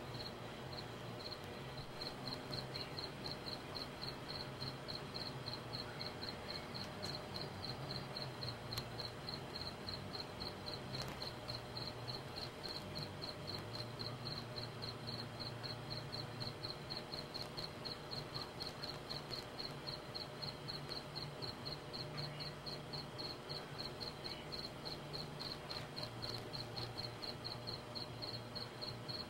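A cricket chirping in a steady, even rhythm, about three high chirps a second, over a faint low hum.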